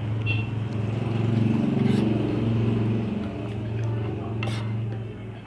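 A motor vehicle's engine hum swells to its loudest about two seconds in, then fades away. A few short metal clinks of forks against the cast-iron skillets sound over it.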